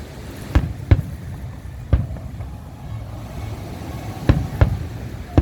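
Fireworks exploding: five sharp bangs, each with a short echo. Two come close together about half a second in, one near two seconds, and two more just past four seconds, over a low steady rumble.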